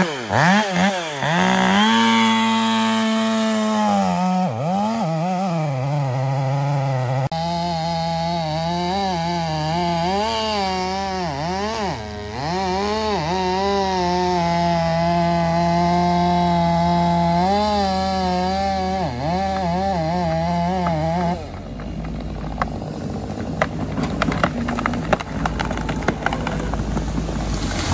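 Chainsaw cutting through the base of a huge cottonwood, its pitch dipping and recovering again and again as it bogs in the cut, over the low steady hum of a heavy machine's engine. About twenty seconds in the saw stops, and the machine's rumble carries on with scattered sharp cracks as the tree starts to go over.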